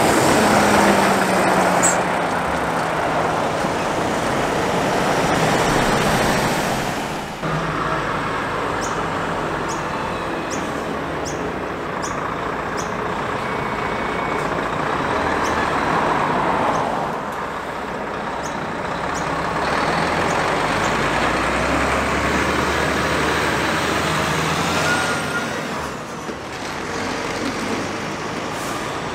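Volvo trucks hauling race car transporter trailers, driving past one after another: diesel engines running with tyre and road noise, the engine note falling as the first truck goes by. The sound changes abruptly several times as one pass gives way to the next.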